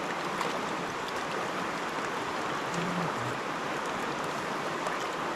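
Steady rush of river water, with light splashing and swishing as a metal plate is scrubbed with a bunch of horsetail in the shallows.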